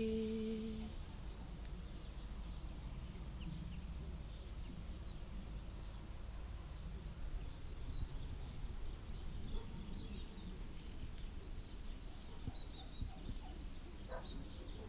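A woman's held sung note ends about a second in. After it comes faint outdoor ambience: a low, steady rumble with scattered distant bird chirps.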